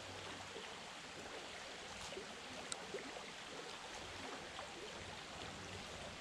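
Ngongotahā Stream water running steadily and faintly, with two brief faint clicks about three seconds in.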